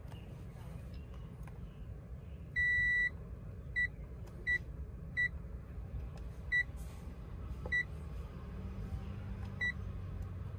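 Electronic beeps at one high pitch: one long beep, then six short beeps at uneven gaps, during the reset of the car's maintenance-reminder interval through a diagnostic scanner. A low steady hum runs underneath.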